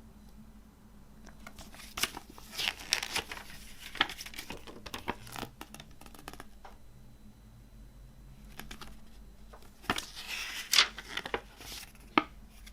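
Hands handling a CD and its packaging: crinkly paper and plastic rustling in two spells, broken by a few sharp clicks and taps.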